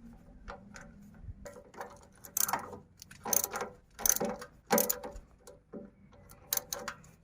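Ratchet wrench clicking in a series of short strokes, worked back and forth on a stiff bolt that undoes very badly and risks stripping.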